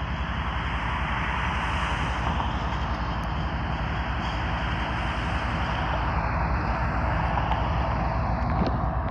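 Diesel freight locomotive running as it approaches slowly: a steady, pulsing low engine rumble under a broad hiss, growing a little louder.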